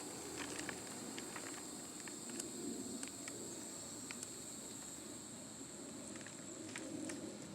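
Hands digging through garden soil for potatoes: rustling and crumbling dirt with scattered small clicks, over a steady high-pitched insect buzz.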